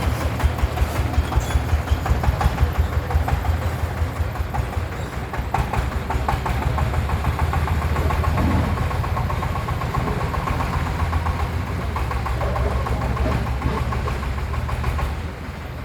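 Single-cylinder diesel engine of a công nông farm truck, a 28-horsepower unit, running with a steady, rapid beat. The level eases slightly near the end.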